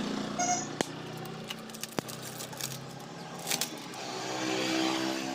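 Plastic packing crinkling with light clicks as a new cylinder head gasket is unwrapped by hand. A low pitched hum swells and fades in the background in the second half.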